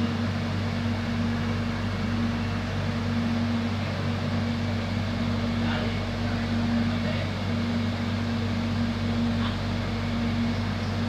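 Steady droning hum inside an electric train carriage standing still, with a constant low tone from the carriage's running equipment and ventilation.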